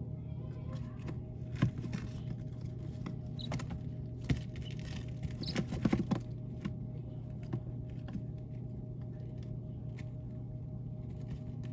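Baby chicks moving about: scattered light taps and scratches of pecking and little feet, with a few brief high peeps, over a steady low hum.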